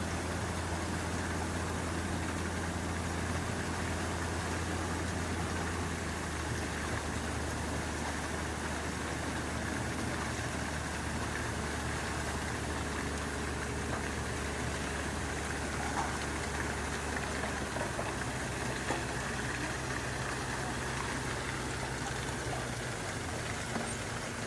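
Engine running steadily at a low, even hum, its pitch dropping a little about six seconds in and again around eighteen seconds, then fading near the end.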